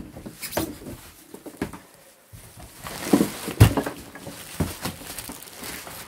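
Cardboard carton and plastic wrapping rustling and scraping in irregular bursts, with a few sharper knocks, as a boxed upright vacuum cleaner is wrestled out of its box.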